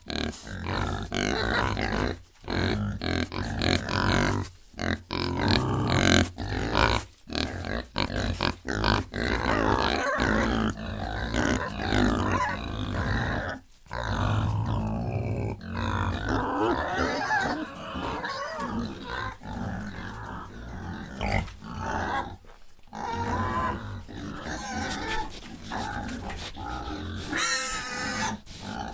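Pigs grunting and oinking: short, rough calls in quick succession, broken by brief pauses, with a higher call near the end.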